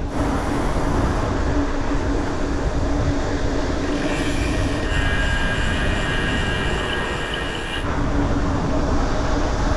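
Mountain bike rolling at speed, with wind on the microphone and a steady low hum. A high-pitched squeal joins from about four seconds in and stops a little before eight seconds.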